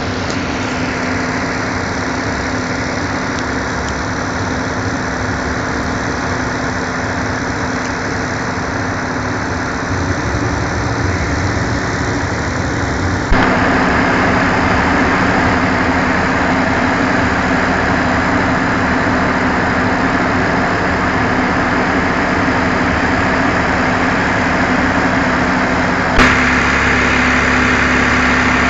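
Opico 555 XL mobile grain dryer running while drying wet grain at 27% moisture: a steady mechanical noise with a constant hum. It turns abruptly louder and brighter about 13 seconds in and changes sharply again near the end.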